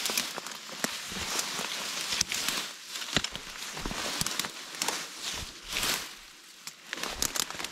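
Footsteps through dry grass and weeds, with leaves rustling and many sharp crackles of dry stems breaking underfoot.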